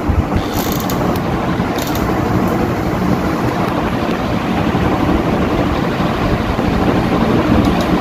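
Ceiling fan running at speed: a steady rush of air, its downdraught blowing on the microphone. A couple of faint high clicks come about half a second and two seconds in.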